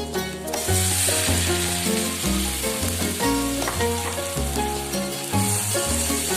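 Tofu frying in a pan, a steady sizzle that starts about half a second in, over background music with a plucked melody and bass notes.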